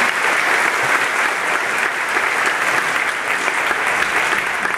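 Audience applauding, a steady dense clapping that keeps up throughout.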